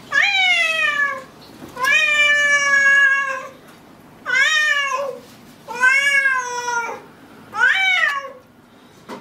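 A cat meowing loudly five times: long, drawn-out meows, each rising quickly and then sliding down in pitch, the second one held longest.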